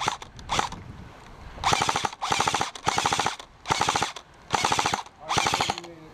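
Airsoft rifles firing rapid full-auto bursts as covering fire: about six short bursts of about half a second each, in quick succession.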